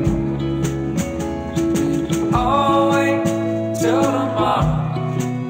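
Band music: guitar, bass and drums, with a lead melody that swells in twice with vibrato, about two and four seconds in.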